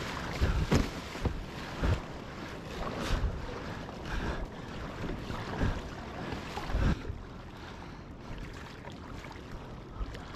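Sea water splashing against and over the bow of a paddled kayak, with wind buffeting the microphone. Several loud splashes come in the first seven seconds, then the sound settles to a quieter wash.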